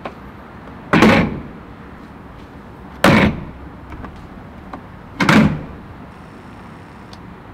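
Three loud, heavy thumps about two seconds apart, each dying away within half a second.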